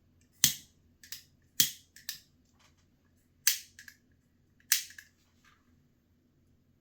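A lighter struck over and over without catching: four sharp strikes with a few smaller clicks between them, from a lighter out of fuel and needing a refill.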